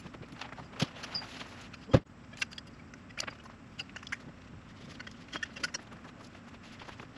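A tarp awning being taken down: scattered clicks, rustles and knocks, with a sharp knock about two seconds in as the tarp comes down, and steps on gravel.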